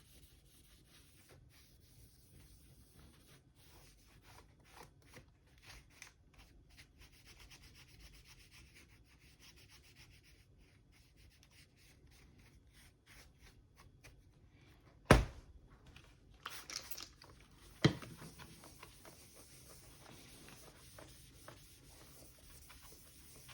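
Faint rubbing of a cloth wiping down a laptop's casing after spraying it with cleaner, with scattered small ticks and two sharp knocks about fifteen and eighteen seconds in.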